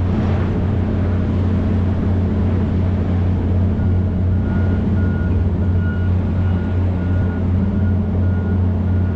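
A large engine running steadily with a low, even hum. From about four seconds in, a faint high tone comes and goes several times.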